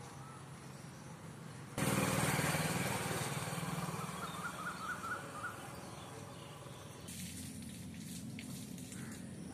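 Outdoor garden ambience: a steady rushing noise that comes in abruptly about two seconds in and slowly fades, with a small bird giving a quick run of about six chirps midway.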